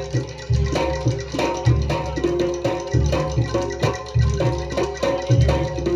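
Javanese jaranan gamelan music playing: repeated struck metallophone notes over a steady beat of deep bass-drum booms.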